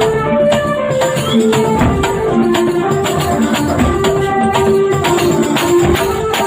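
Traditional Banyuwangi folk music played for a procession: a melody of held notes moving step by step over frequent drum strokes and jingling percussion.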